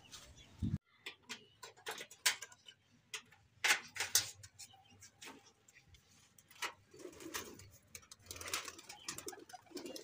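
Pigeons cooing low and softly, twice in the last few seconds, among scattered short clicks and knocks of a corrugated-metal loft door being handled and opened.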